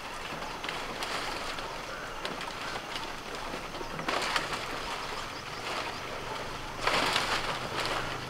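Dry palmyra palm fronds rustling as a tapper moves among them at the crown of the tree, in louder bursts about four seconds in and again near the end.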